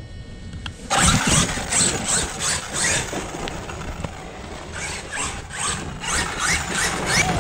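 Radio-controlled truck's electric motor revving in repeated short bursts while the drivetrain grinds and squeals. The pinion gear has worked loose on the motor shaft and is skipping against the spur gear.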